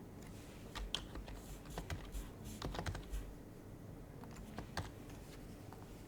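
Typing on an HHKB Professional HYBRID Type-S keyboard with silenced Topre capacitive switches. A quick run of keystrokes lasts about two and a half seconds, then after a short pause come a few more scattered keystrokes.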